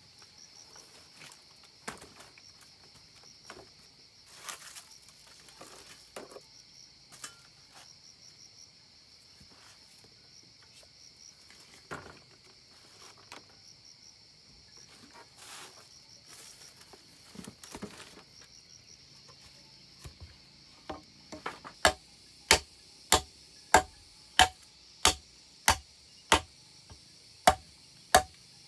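Steady insect chirring, with scattered light knocks for most of the time. About 21 seconds in, sharp regular knocks begin, about one and a half a second: a wooden stick beating a length of green bamboo.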